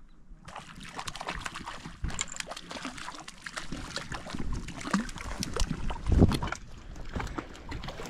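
Water splashing and sloshing in quick irregular bursts as a hooked brook trout is brought in and handled at the lake's edge. It starts suddenly about half a second in, with a heavier splash about six seconds in.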